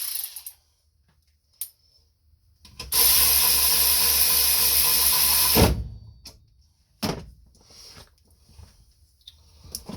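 12-volt cordless 3/8-inch power ratchet running its motor steadily for about three seconds while spinning a fastener, then stopping with a sharp knock. A single sharp click follows about a second and a half later.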